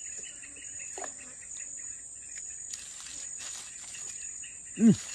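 Insects chirping and droning steadily in a high, even band. Near the end come two short, loud calls.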